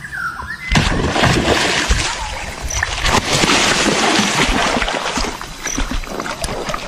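Loud, continuous splashing and churning of water, starting about a second in: a snakehead fish striking a surface frog lure and thrashing at the surface.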